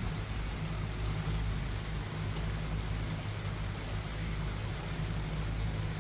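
Steady rain falling, with a constant low rumble underneath.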